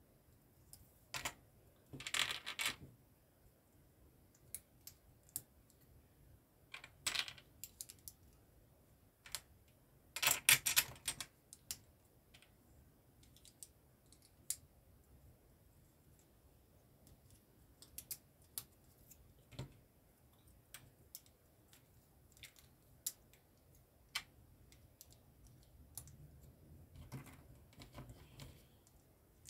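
Plastic LEGO bricks clicking and clattering as they are handled and pressed together: scattered single clicks, with louder clusters of rapid clicks about two seconds in, around seven seconds, and loudest around ten to eleven seconds.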